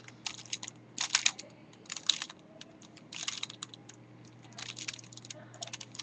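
Plastic 5x5 Rubik's-type cube being turned by hand: short bursts of clicking and clacking as its layers turn, about six bursts with brief pauses between.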